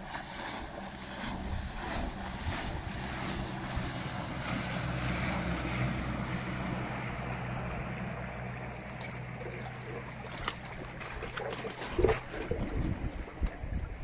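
Small planing plywood boat passing close by under an electric outboard: a steady low motor hum that swells as it goes by and fades as it heads away, over the rush of its wake and wind on the microphone. About twelve seconds in the wake slaps loudly against the shore rocks.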